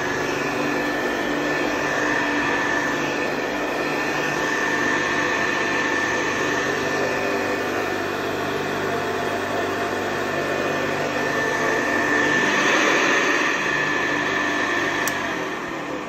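A 1964 Hoover Convertible Model 33 upright vacuum cleaner running steadily while it is pushed over a rug: a constant motor whine with a steady high tone over a rushing hiss.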